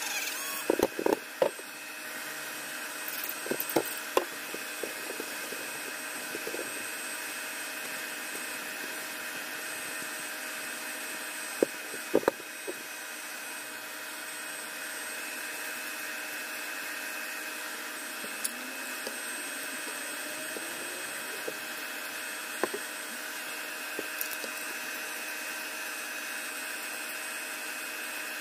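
Steady mechanical hum throughout, with a few sharp knocks and rubbing as a metal rifle magazine is handled and taped, loudest about a second in and again around twelve seconds in.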